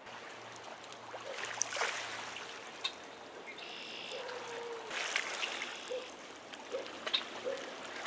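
Shallow water trickling and lapping along a muddy shoreline, with irregular small splashes.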